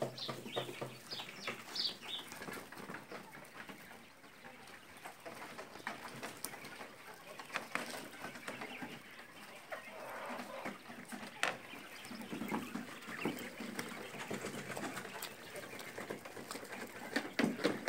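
A flock of month-old quails calling softly, with scattered short chirps and low chattering as they crowd together to peck. Occasional sharp clicks are mixed in.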